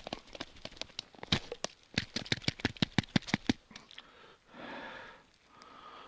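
A quick, irregular run of sharp crackling clicks for about three and a half seconds, then a short soft rustle.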